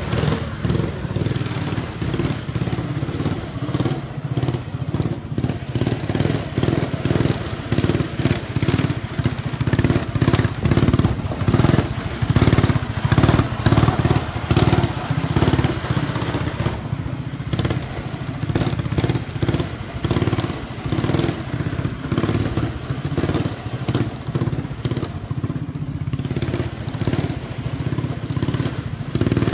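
Arctic Cat Mini Z 120 kid's snowmobile with an upgraded 6 hp Honda single-cylinder four-stroke engine, running as it is ridden around. The engine note rises and falls with the throttle, loudest about halfway through.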